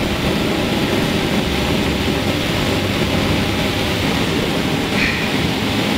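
Bunsen burner flame burning with a steady rushing noise while a wire inoculating loop is heated in it to sterilize it.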